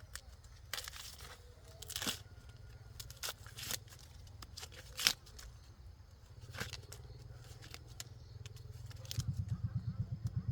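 Dry corn stalks and husks snapping and tearing in scattered bursts as ears are picked by hand. About nine seconds in, a rapid low throbbing starts underneath.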